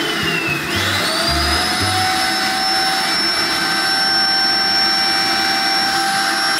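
Vacuum cleaner motor running with a high whine while its hose is pressed to the mouth, sucking the lips in. The pitch climbs about a second in and then holds steady.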